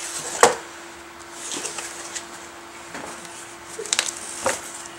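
Cardboard box being handled on a workbench: it is slid along and its flaps are opened, giving a few sharp knocks and scrapes, the loudest about half a second in.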